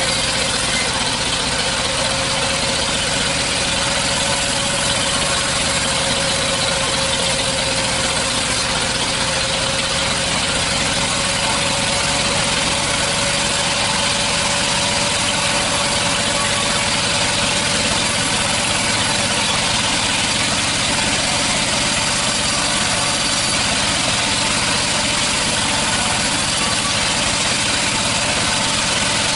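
Sawmill machinery running steadily: a constant mechanical drone with one high, steady whine that creeps slowly up in pitch.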